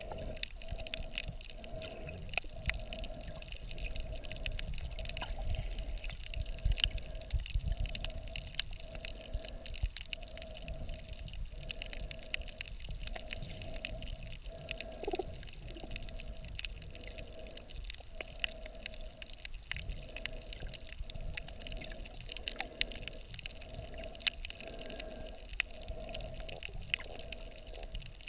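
Underwater ambience picked up by a submerged camera in shallow reef water: a muffled low rumble of moving water with many scattered sharp clicks and crackles and a faint steady hum that swells and dips about once a second.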